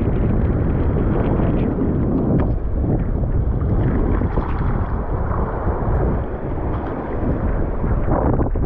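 Strong wind buffeting the camera microphone, a steady low rumble.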